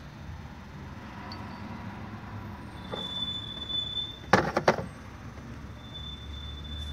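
Two sharp clacks from the removed high-pressure fuel pump being handled, a little past the middle, over a steady low hum.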